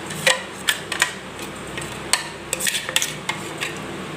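Steel spoon scraping batter out of a stainless steel mixer-grinder jar into a steel bowl: a run of irregular sharp metal clinks, about nine, the loudest right at the start.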